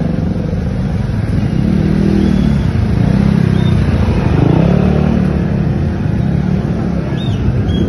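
Motor scooter engine running at low speed in slow traffic, its note rising and falling a few times with the throttle.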